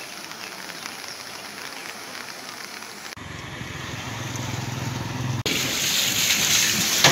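Steady rain and floodwater noise, heard as an even hiss across three spliced clips. Cuts come about three seconds in and about five and a half seconds in; the middle stretch carries a low steady hum, and the last is the loudest.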